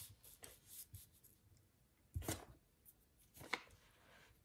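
Paper sticker sheet and planner pages handled and slid across a desk: a few faint, brief rustles, the clearest about halfway through.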